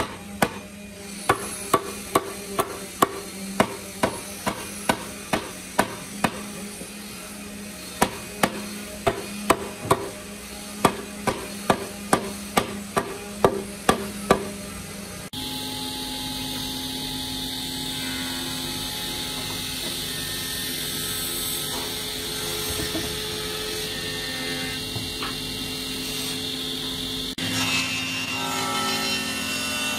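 A hammer striking a wooden joint again and again, about two blows a second with a short pause partway, as an angled leg is driven into its mortise. About halfway through it gives way to a steady machine hum, and near the end to a table saw running.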